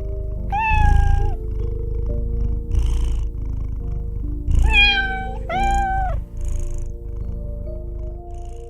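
An animal calling three times, each call drawn out and held at a steady pitch before dropping at the end, over background music with sustained tones.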